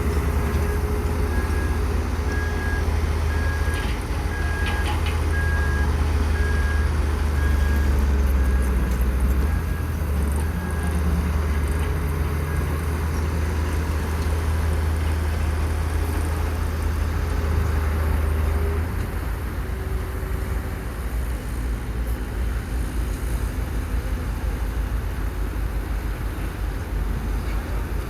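Construction vehicle engines running steadily, with a strong low drone that eases off about 19 seconds in. A short repeated beep sounds during the first half.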